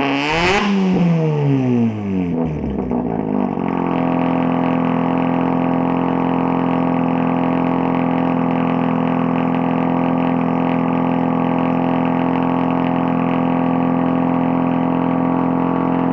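Mazda RX-7 FD's turbocharged 1.3-litre twin-rotor rotary engine running through a new custom exhaust, ridiculously loud. It is blipped once at the start, falls back over a few seconds, then settles into a steady idle.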